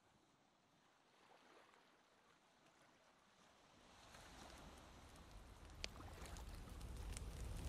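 Near silence at first. Over the second half a faint hiss with scattered sharp crackles fades in and grows: the crackle of a fire.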